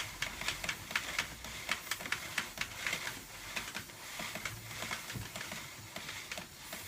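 Suzuki RF600 motorcycle drive chain ticking as the rear wheel is turned by hand, the links clicking over the sprocket in a steady run of about three to four clicks a second.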